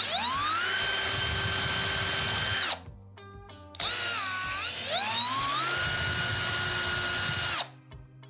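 Electric power tool motor spinning up to a steady whine, running about two and a half seconds and stopping. About a second later it runs again, its pitch dipping and then rising before it holds steady for a couple of seconds and cuts off.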